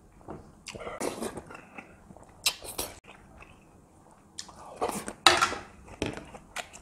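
Close-up eating sounds: a man chewing and smacking on a mouthful of sausages and ramen, with a few sharp clicks and clinks of a metal spoon and chopsticks against a stainless steel meal tray.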